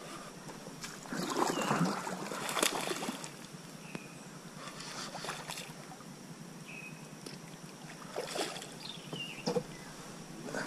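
A hooked bass thrashing at the water's surface beside a kayak: several separate splashes against a low background of lapping water.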